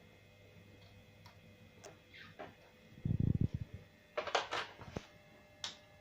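Hands working on a bicycle's rear brake. Light scattered clicks, a brief low rumble about three seconds in, then a quick run of rattly clicks and a sharp click near the end.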